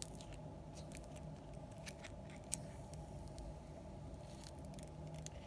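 Faint clicks and taps of epoxy resin coasters and silicone molds being handled, with one sharper tap about two and a half seconds in, over a steady low hum.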